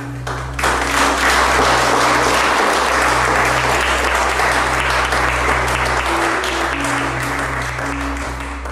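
Audience clapping, starting about half a second in and fading near the end, over ambient background music with sustained low notes.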